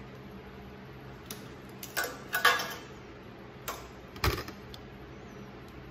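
A few sharp clicks and knocks from hands working at a small log-splitter engine while the spark plug wire is taken off, the loudest a click with a dull thud about four seconds in, over a low steady hum.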